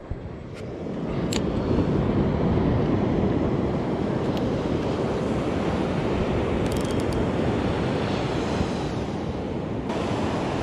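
Ocean surf washing onto a sandy beach, mixed with wind rushing over the microphone. The noise swells up over the first couple of seconds and then holds steady, with a sharp click right at the start.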